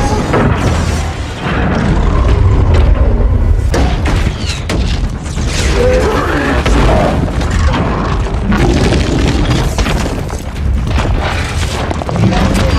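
Film action sound mix: repeated explosions, booms and crashing debris over a dramatic orchestral score.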